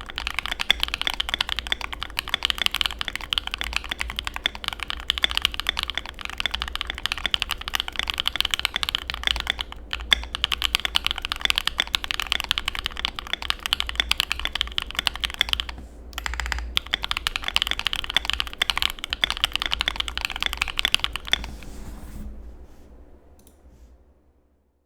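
Fast, continuous typing on a Keychron Q2 mechanical keyboard with lubed BSUN BCP switches, PBT keycaps, a steel plate and a tape mod: a dense stream of key clacks, creamy in the uploader's word. It pauses briefly twice and stops a few seconds before the end, where the sound fades out.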